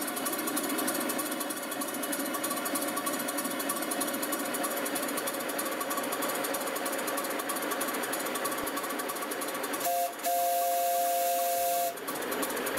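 7¼-inch gauge miniature live steam locomotive running on test with its wheels off the rails: a fast, steady chuffing and clatter from its cylinders and motion, with hiss. About ten seconds in, its whistle sounds a steady two-note chord for about two seconds, then cuts off.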